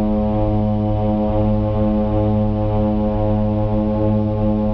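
DHC-6 Twin Otter's twin turboprop engines and propellers droning steadily, heard inside the cabin and cockpit. The hum is held at one even pitch, with a slow pulsing beat.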